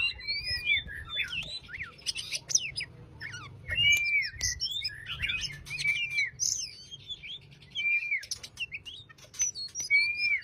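Oriental magpie-robin singing a relaxed, rambling song of varied whistles mixed with sharp clicks, one arching whistled note returning every couple of seconds.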